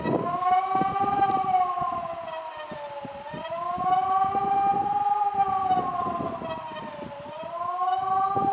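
Mobile electronic warning siren sounding the German 'Bevölkerungswarnung' (public warning) signal: a wailing tone that rises and falls about every four seconds, twice through in this stretch.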